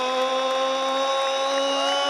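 Boxing ring announcer drawing out the 'G' of 'Triple G' into one long, steady shouted note.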